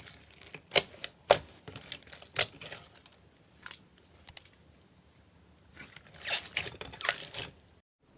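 Slime being pressed and squeezed by hand, giving a run of sharp clicks and pops. After a quiet pause comes a dense stretch of crackling, which stops abruptly near the end.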